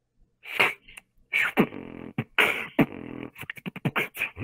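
Vocal beatboxing through a headset microphone over a video chat. It starts about half a second in with mouth kick-drum hits and snare bursts over a steady hum, and turns to a quick run of hi-hat clicks near the end.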